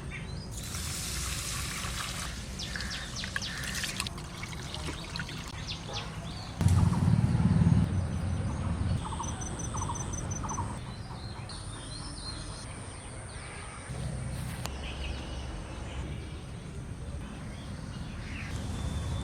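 Light rain dripping and trickling, with birds calling. A louder low rumble about seven seconds in lasts around a second.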